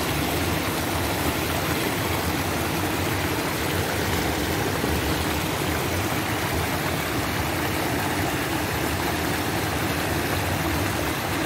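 Steady rush of water pouring and churning into a concrete fish pond, an unbroken noisy wash with a low rumble underneath.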